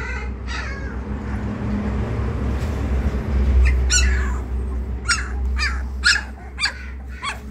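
Three-week-old Labrador puppies whimpering in short, high squeaks, a few at first, then a quick run of them in the second half, over low handling rumble.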